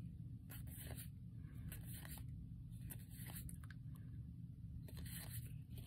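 Yu-Gi-Oh trading cards sliding and flicking against each other as a stack is leafed through card by card: faint scattered clicks and short scrapes, over a low steady hum.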